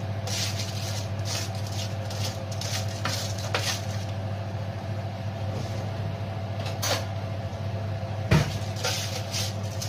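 Wooden spatula scraping and knocking oven-roasted potato cubes across a foil-lined baking tray: scattered soft scrapes and clicks, with one sharper knock near the end, over a steady low hum.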